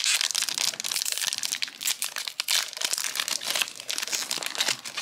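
Foil wrapper of a Dragon Ball Super Card Game booster pack crinkling in gloved hands as it is handled, a dense run of sharp crackles.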